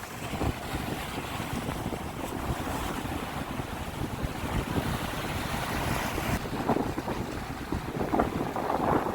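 Sea waves washing and splashing, with wind buffeting the microphone; a few sharper splashes come near the end.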